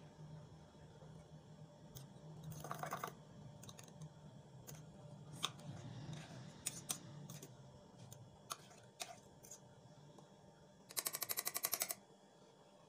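A metal spoon and fork clinking and scraping against a mug while whipped coffee is stirred into milk: scattered taps, with a fast run of about a dozen clinks near the end. A low steady hum runs underneath.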